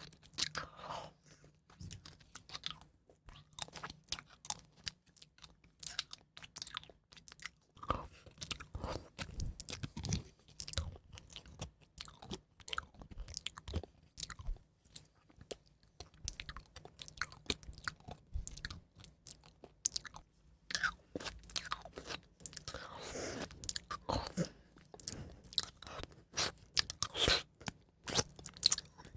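Close-miked ASMR trigger sounds: a dense, irregular run of crisp crunches and clicks, several a second.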